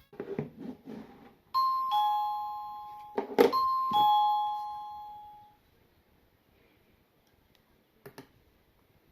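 Electronic two-note ding-dong doorbell chime, a higher note followed by a lower one, played twice. A sharp click cuts the first ding-dong short, and the second rings out and fades over about a second and a half. A few soft knocks come before it, and a single click comes near the end.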